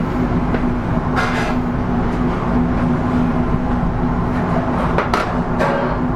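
Steady low mechanical hum of commercial kitchen machinery, with a few brief knocks or clatters, one about a second in and two more near the end.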